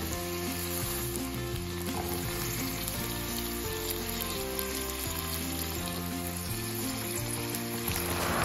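Background music of held chords that change every second or so, over a steady crackling hiss. A swell of noise rises near the end.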